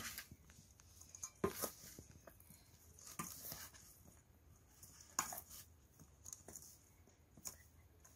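Metal spoon stirring a soft mash of soaked bread and boiled potato in a steel bowl: faint, scattered scrapes and knocks of spoon on steel, one every second or two.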